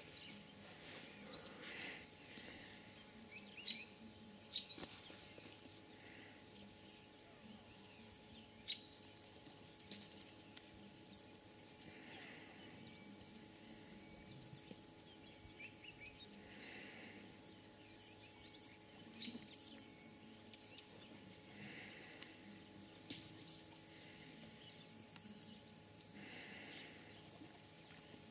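Bush ambience: a steady high-pitched insect drone with scattered short bird chirps and a few sharp clicks or snaps, the loudest about three-quarters of the way through.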